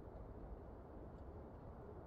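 Faint, steady low rumble of outdoor background noise, with no distinct sounds standing out.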